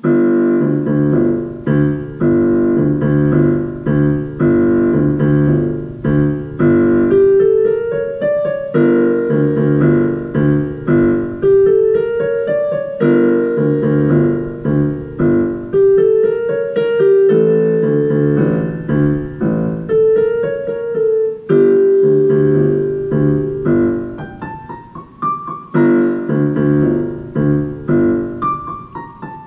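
Portable digital keyboard played with a piano sound: a beginner's piece that starts abruptly, with repeated low chords and short rising runs in the melody above them, and a softer passage about three quarters of the way through.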